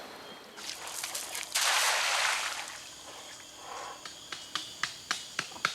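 A short burst of rushing noise about two seconds in, then, from about four and a half seconds, a steady series of sharp knocks, about three a second.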